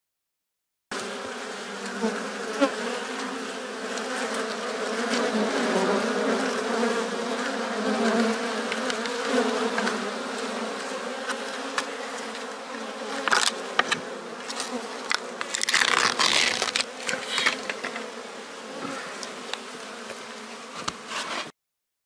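Many honey bees buzzing close up at a hive entrance, a steady hum. Between about 13 and 17 seconds in, a few sharp clicks and rustles are heard over it.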